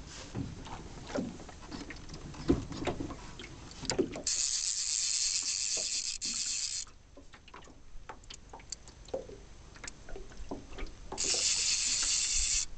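Fly reel's click-and-pawl drag buzzing in two bursts, one about two and a half seconds long and a shorter one near the end, each starting and stopping sharply, while a hooked trout is being played. Light scattered knocks and clicks sound between the bursts.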